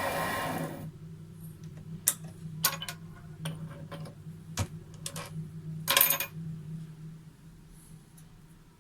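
Homemade lathe running, then switched off just under a second in, its hum fading away. Several light metallic clinks and clatters follow.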